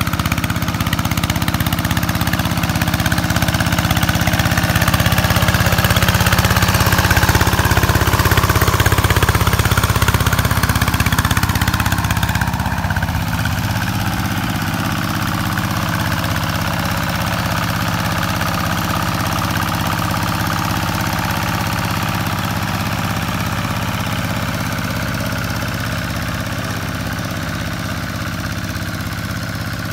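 Vikyno RV125 hand tractor's single-cylinder diesel engine running steadily under load as it pulls through a flooded rice paddy, a steady knocking chug. It swells louder for a few seconds near the middle, then settles.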